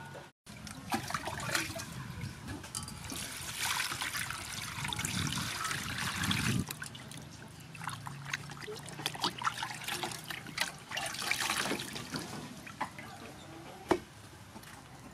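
Water sloshing and splashing in a pot as a whole fish is washed by hand, with dripping and small handling clicks. A single sharper tap comes near the end.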